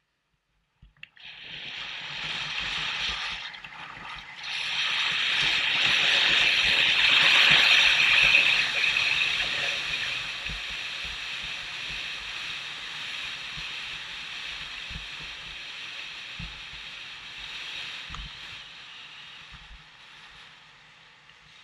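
Skis running fast over wind-crusted glacier snow: a loud scraping hiss that starts about a second in, is loudest about a third of the way through, then slowly fades.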